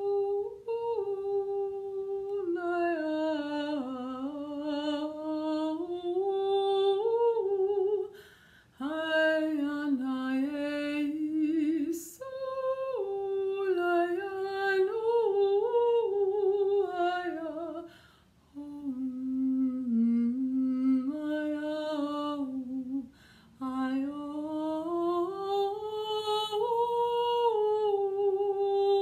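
A woman's solo unaccompanied voice singing wordless 'light language' in four long phrases of held and slowly gliding notes, partly hummed, with short breaths between phrases.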